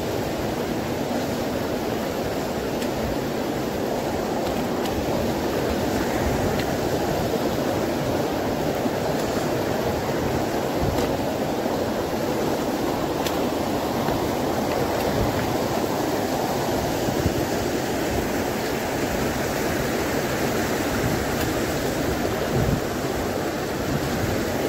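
Glacier-fed mountain river, the Bhagirathi (Ganga), rushing steadily in a continuous loud roar of white water.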